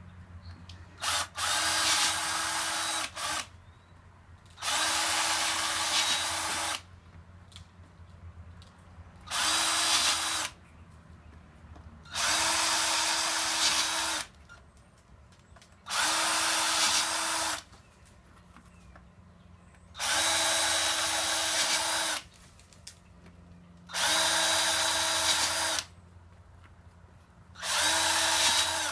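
Power drill boring holes for misting nozzles in PVC pipe: about eight short runs of the motor, each one to two seconds of steady whirring, with brief pauses between holes.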